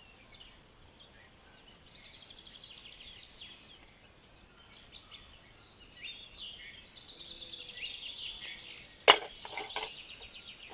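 Birds chirping in quick, high runs of notes in the background, in patches about two and six seconds in. A single sharp clink of a kitchen utensil about nine seconds in is the loudest sound.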